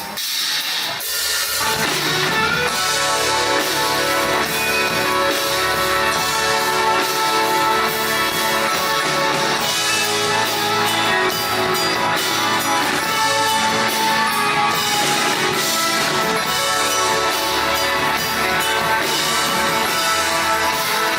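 Live band playing a pop-rock song with guitars and drum kit, no vocals; the full band comes in about two seconds in.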